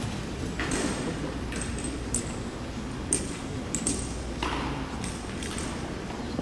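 Scattered sharp clinks and knocks, about nine in six seconds, over a low steady hum.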